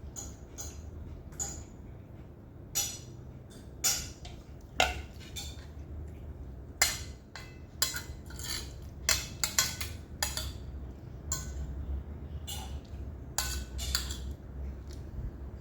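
Cutlery clinking and scraping against plates and bowls while eating, a scattering of short sharp clinks, several in quick succession about halfway through.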